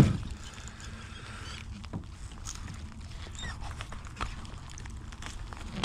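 Scattered small clicks and knocks of a kayak and fishing gear being handled, over a steady low wind rumble, with one sharp knock at the very start.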